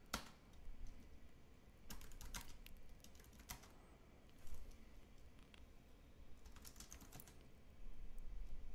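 Faint computer keyboard typing: scattered keystrokes in small clusters with pauses between them.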